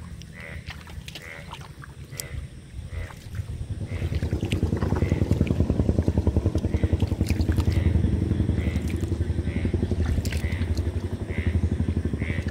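A small engine running with a rapid pulsing drone, swelling about four seconds in and easing off near the end. A faint chirp repeats about twice a second underneath.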